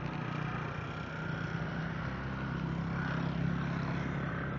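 A steady low engine-like hum that holds at an even pitch throughout.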